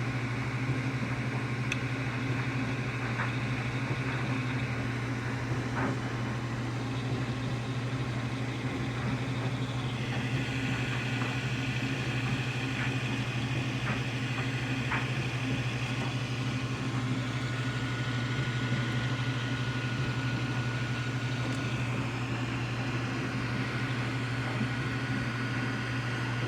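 3D printer running with its new direct-feed extruder fitted: a steady hum from its fans, with thin stepper-motor whines that come in and change pitch partway through.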